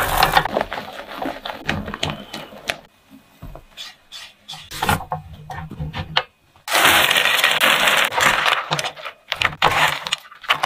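Marshmallows tumble into a nonstick frying pan with a sudden clatter. A spatula then stirs and scrapes the sticky melted marshmallow in short, scattered strokes. About seven seconds in, there is a dense rattling rush for about two seconds as pistachios and strawberries go in, then more stirring.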